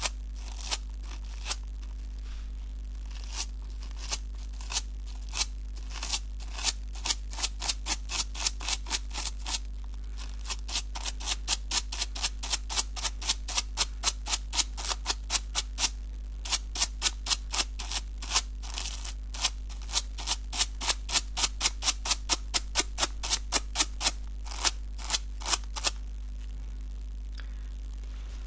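A toothbrush scrubbed in quick, short strokes across the hook side of a Velcro strap, making a run of sharp scratchy strokes about three a second, broken by a few brief pauses and stopping near the end. A steady low hum sits underneath.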